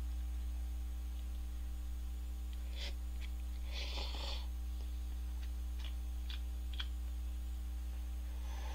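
A person slurping cup noodles: a short slurp about four seconds in, then a few faint clicks of chewing, over a steady low electrical hum.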